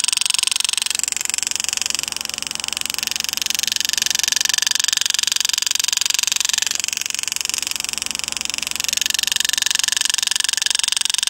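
Pneumatic power-assist engraving handpiece (Lindsay) hammering a graver into a copper coin, a fast, steady buzzing that rises and falls in strength a few times as leaf cuts are pushed into the border.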